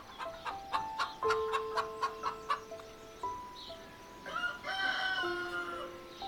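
A rooster crows once, about four seconds in, for about a second, over light background music of stepped, plucked notes.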